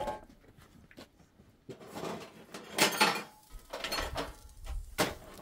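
Pots and dishes being handled and set down: short clattering knocks in several separate bursts, starting a little under two seconds in, the loudest about three seconds in.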